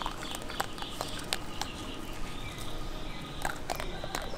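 Italian greyhound nosing and mouthing a plastic Easter egg on dirt, working at it to get the treat inside: irregular small clicks and taps of the plastic shell over a faint steady outdoor background.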